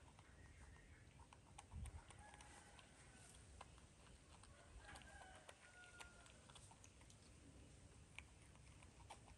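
Near silence: faint outdoor ambience with distant chickens calling in short notes and a few soft clicks.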